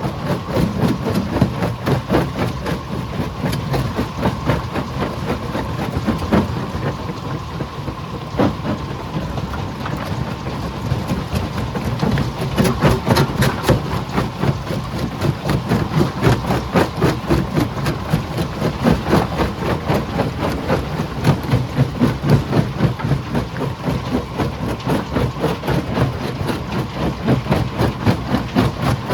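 Stone crusher running under load: a steady engine drone under a dense, continuous clatter of rocks being broken and rattling through the machine.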